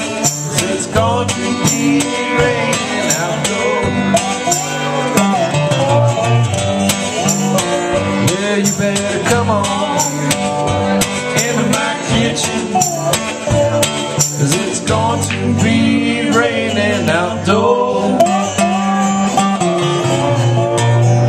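Two acoustic guitars playing an old country-blues tune, a steady run of plucked notes with some notes bending in pitch.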